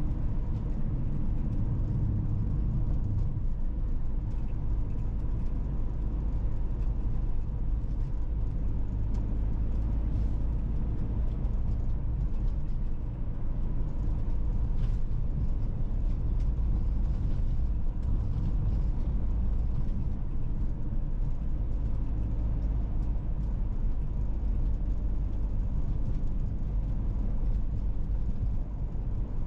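A car driving along the road, a steady low rumble of tyres and engine.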